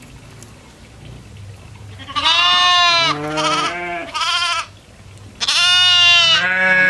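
Goats bleating: a quick run of three short bleats about two seconds in, then a longer, wavering bleat starting past halfway.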